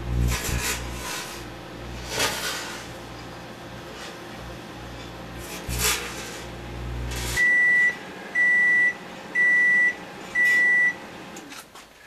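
Microwave oven running with a steady low hum while a metal fork touching the metal at the side of the turntable arcs, crackling in short bursts. About seven seconds in the hum stops and the oven beeps four times, about once a second, as its timer ends.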